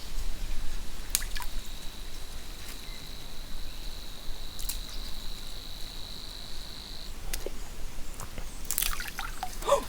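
A steady high-pitched insect drone that starts about a second in and stops after about six seconds, over quiet outdoor background with a few faint clicks.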